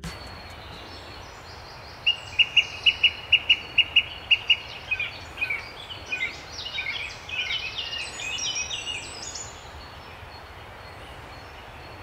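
A small bird singing over a steady background hiss. About two seconds in comes a fast run of about a dozen repeated high notes, then a tumble of varied, higher notes that dies away a few seconds before the end.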